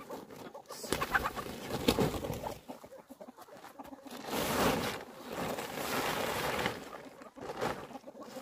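Dried corn cobs knocking into a plastic basket, then a plastic tarpaulin rustling for a few seconds as it is dragged over the heap of corn. Chickens give low calls now and then.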